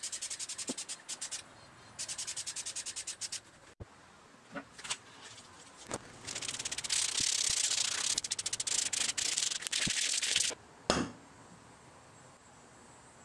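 Aerosol spray can of flat black paint hissing: first in trains of quick pulses, then a longer steady spray of about four seconds. A single knock comes near the end.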